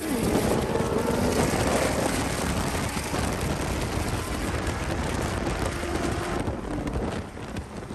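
Heavy wind rushing over the microphone while riding at speed, mixed with a sand rail's engine running as it pulls away ahead. The rushing noise eases about six and a half seconds in.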